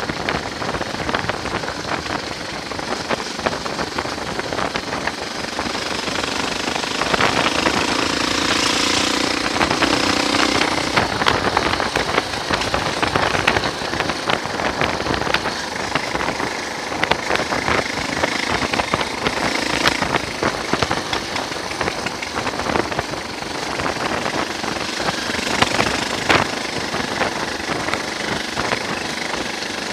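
Motorcycle riding at speed: the engine running under rough, crackling wind buffeting on the microphone, with the engine note coming through more clearly and a little louder about seven to eleven seconds in.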